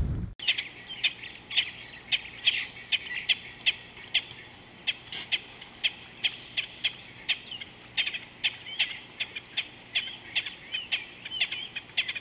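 Birds chirping: a run of short, high chirps, about three a second, with a few sweeping notes near the end.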